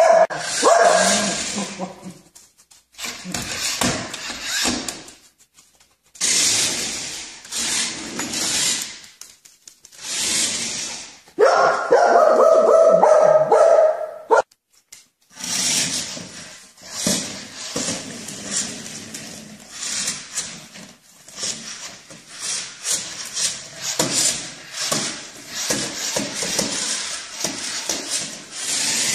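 A dog barking, in several short stretches that are broken by abrupt cuts.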